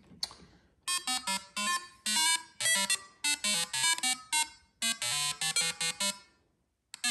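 Eurorack modular synthesizer voice playing a rapid sequence of short, bright, buzzy notes at shifting pitches, about three a second, with a brief break near the end. The pitches come from cellular-automata CV and the notes are switched on and off by a flip-flop gating a VCA.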